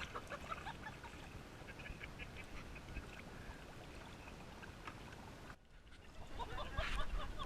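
Otters chirping and squeaking in short, scattered calls. There is a brief break a little past halfway, and the calls come thicker near the end.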